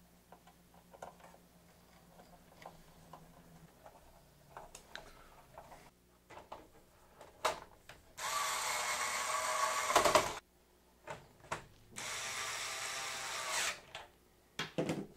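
Cordless electric screwdriver running twice for about two seconds each, driving screws into the plastic back casing of an LCD monitor. Before that, faint clicks of wire connectors and parts being handled.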